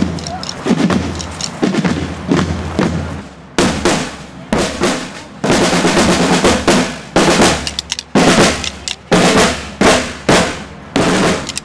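A group of snare drummers playing a marching cadence of rolls and sharp accented strikes. The drumming gets louder and crisper about three and a half seconds in.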